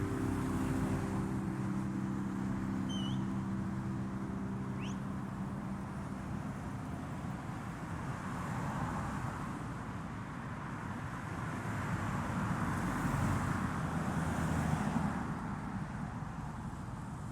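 Car on the move: steady road and engine noise. Background music fades out over the first few seconds.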